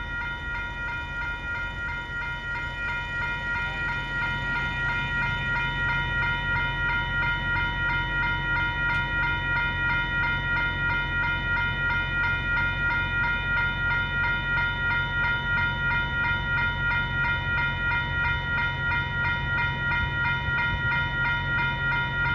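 Railroad grade-crossing bells ringing continuously in a fast, even repeat of about three strikes a second, over a low steady hum. The ringing grows a little louder about four seconds in.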